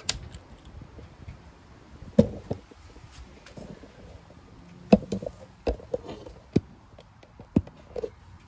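Handling noise: a series of scattered sharp knocks and clicks, the loudest about two seconds and five seconds in.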